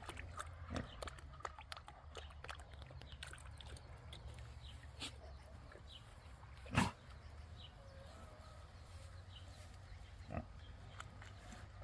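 A pig wallowing in a mud hole, grunting softly, with scattered small clicks. One louder short sound comes about seven seconds in and a smaller one near ten seconds.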